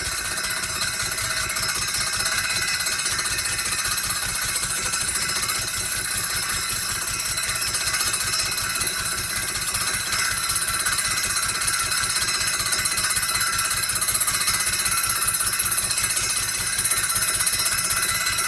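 Lister D single-cylinder stationary engine running steadily with a fast, even beat, belt-driving a circular saw bench whose blade spins free, not cutting, with a steady high whine above the engine.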